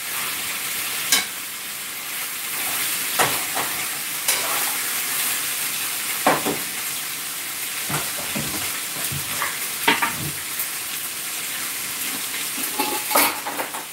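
Pork ribs frying in a pan with a steady sizzle, while a utensil stirring them scrapes and knocks against the pan every one to three seconds.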